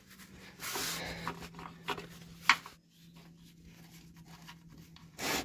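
Engine-oil drain plug on a camper van's sump being loosened with a wrench and unscrewed by a gloved hand to drain the oil: light metal clicks and rubbing, with a short rush of noise about a second in and another near the end.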